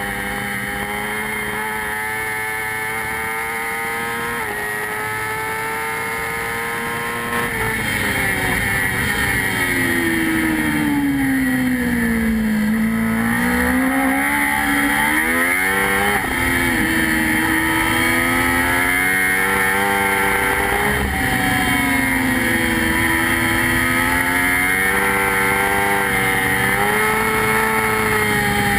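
Yoshimura-tuned Suzuki GSX-R1000 superbike's inline-four engine heard from on board at racing speed. It holds a fairly steady note at first and gets louder about seven seconds in. The pitch then falls away in a long slow drop and comes back up, followed by repeated rises and sudden drops in pitch as the bike accelerates and changes gear.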